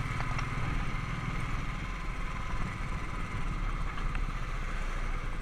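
Royal Enfield Thunderbird 350's single-cylinder engine running steadily while the motorcycle is ridden, under an even hiss of road and wind noise.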